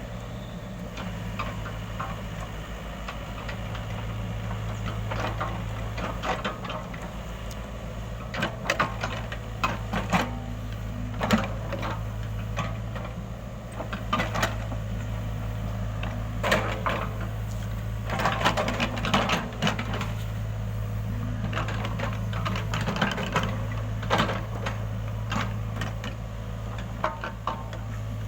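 Excavator diesel engine running steadily, with frequent short clanks and knocks from the machine at work, busiest in the middle.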